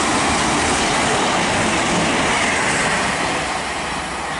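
A British Rail Class 158 diesel multiple unit passing through the station: a loud, dense running noise of engine and wheels on rail, loudest in the first three seconds and then easing slightly as it goes by.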